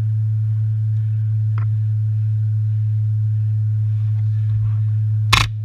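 A steady low-pitched hum, a single droning tone, runs throughout. A short loud burst of noise comes near the end.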